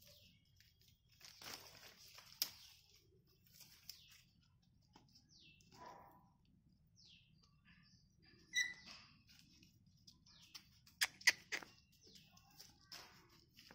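Faint rustling of dry leaves and twigs with scattered sharp clicks as puppies scamper over the ground. A few short high chirps fall in pitch around the middle, with one brief high squeak a little later.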